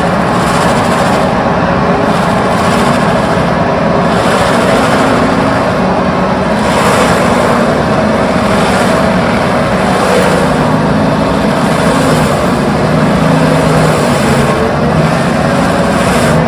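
Heavy excavator's diesel engine running steadily at a constant loud level, with a low hum that shifts slightly in pitch.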